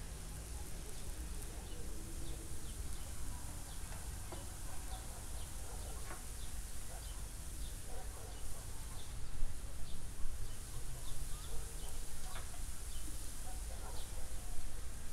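Broccoli and green beans sizzling in a frying pan, with scattered small crackles and pops over a steady low hum, growing a little louder and more crackly in the second half.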